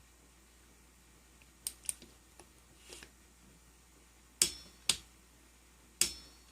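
Click-type torque wrench tightening a flywheel nut to a set 80 inch-pounds: a few faint ticks, then sharp metallic clicks with a brief ring as the wrench breaks over at its set torque.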